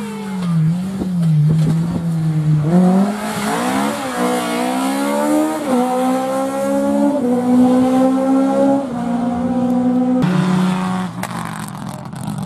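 Rally car engine accelerating hard through the gears: its pitch climbs and drops back at each upshift, about five times in a row after a slower, wavering start.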